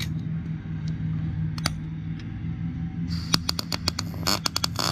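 MIG welder tacking a steel control-arm mounting bracket onto an axle housing: several short sputtering bursts of arc crackle start about three seconds in, then a longer, continuous crackle near the end. A steady low hum runs underneath.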